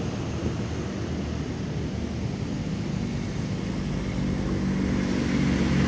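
Heavy vehicle engine, most likely a bus, running with steady road rumble and growing louder near the end as it approaches.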